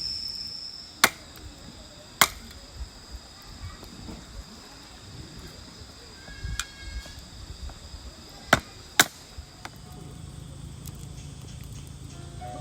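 Four sharp wooden knocks in two pairs, the first pair a little over a second apart and the second about half a second apart, typical of firewood being chopped or split for a campfire. Crickets chirp steadily and faintly behind them.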